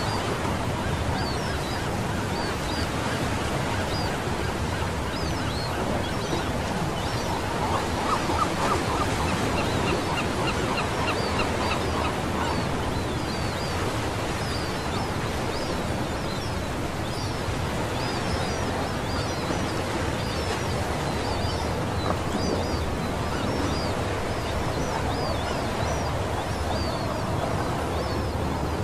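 Small sea waves washing onto a sandy beach, a steady rush of surf, with many short bird calls over it and a quick run of repeated calls about eight to twelve seconds in.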